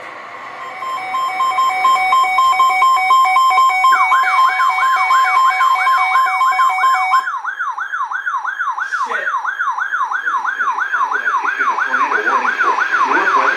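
Weather radio alarm going off ahead of a tornado warning: a steady, pulsing alert tone, joined about four seconds in by a fast rising-and-falling siren warble of about three sweeps a second. The tone stops a few seconds later and the warble carries on alone.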